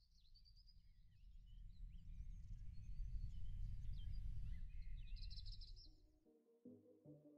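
Outdoor ambience of small birds chirping over a low rumble, swelling and then fading out about six seconds in. Synthesizer music begins near the end.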